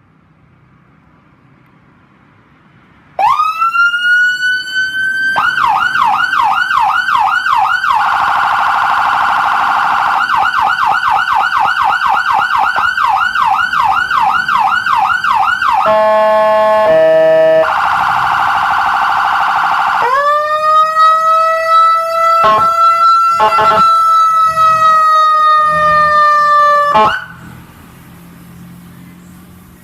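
Axixtech electronic emergency-vehicle siren cycling through its tones. It starts about three seconds in with a rising wail, switches to fast repeating yelp and warble sweeps, then a held tone broken by a few sharp clicks, and cuts off suddenly near the end.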